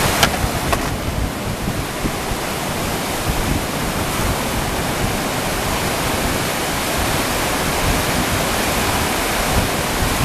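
Steady rushing roar of big whitewater rapids: a river's standing play wave breaking and churning without pause.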